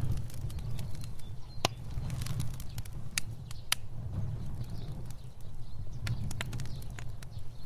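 Fire burning, with a steady low rumble and irregular sharp crackles and pops.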